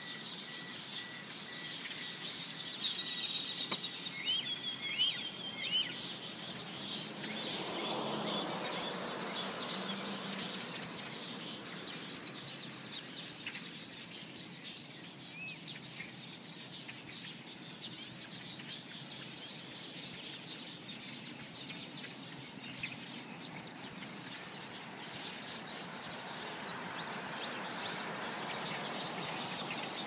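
A large flock of small birds perched on overhead power lines, chirping all at once in a dense, unbroken chatter. A low rush swells briefly about eight seconds in.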